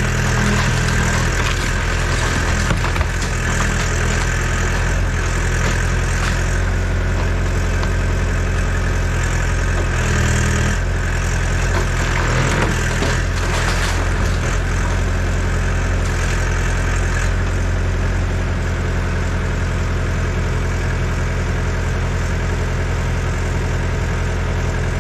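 Yanmar ViO80 excavator's diesel engine running steadily under hydraulic work, its pitch shifting briefly about ten seconds in, with several spells of added rushing noise over it.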